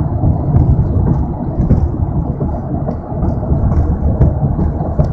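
Steady, loud low rumbling noise with no clear pitch, strongest in the bass, with a few faint clicks.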